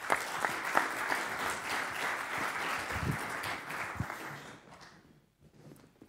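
Audience applauding, the clapping dying away about four to five seconds in.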